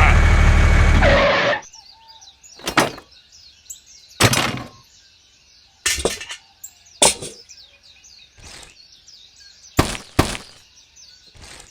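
A loud steady sound that cuts off suddenly about a second and a half in, then about eight separate short knocks or scrapes spaced a second or so apart, over faint birds chirping in the background.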